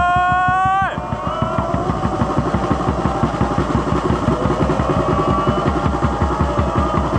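Football supporters' section: a long rising held note breaks off about a second in, and a rapid, even drumbeat takes over with crowd voices behind it.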